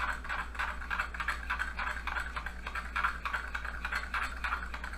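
A metal utensil stirring quickly in a small ceramic bowl, clicking against its sides in a fast, even rhythm as flour is mixed into pork cooking juices to make a thickening slurry.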